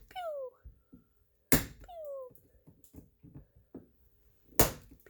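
Plastic Smart Car inner door panel being cut and broken away: sharp cracks, each followed by a short squeak that falls in pitch, about three times.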